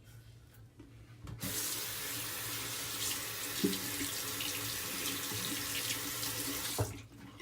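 Tap water running into a sink for about five and a half seconds, turned on about a second and a half in and shut off near the end, with a short knock partway through.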